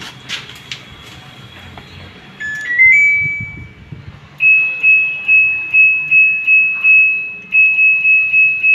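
Front-loading washing machine's control panel: a short rising power-on chime about two and a half seconds in, then a string of quick identical high beeps, about two a second, as the program selector knob is turned from setting to setting.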